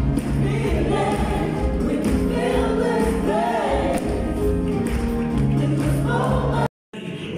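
Live gospel worship music: several singers on microphones backed by a band with keyboard. It cuts off suddenly near the end.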